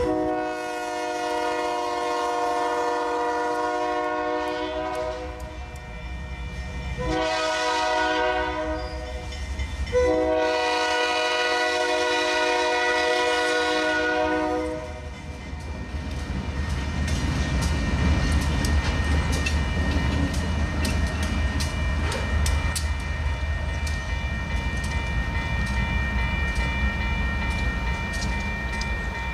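Diesel locomotive's air horn sounding for a grade crossing: a long blast, a short one and another long one, each a chord of steady notes. About fifteen seconds in the horn stops. The locomotive's engine and wheels then rumble on over the rails, with a grade-crossing bell ringing.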